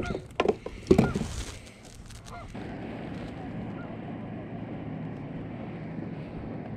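A few short bird calls with a bending pitch, mixed with sharp knocks, in the first two and a half seconds; then a steady low rush.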